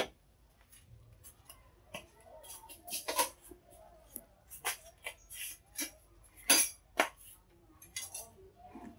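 Scattered light clinks and knocks of metal cookware being handled at the stove: short sharp sounds at uneven intervals, the loudest about six and a half and seven seconds in.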